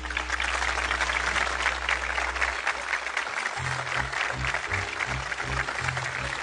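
Applause over background music: a steady clatter of clapping above a low bass line that turns into a pulsing beat about three and a half seconds in.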